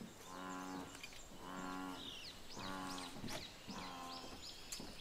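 A low animal call repeated in an even series, four calls about a second apart, each just over half a second long. Small birds chirp above it in the second half.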